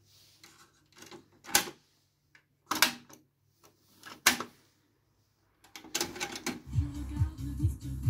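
Sharp mechanical clicks and clunks from a Pioneer CT-W205R double cassette deck as a cassette door is shut and its buttons are pressed, about five in all. About six seconds in, electronic music with a steady thudding beat starts playing from the deck.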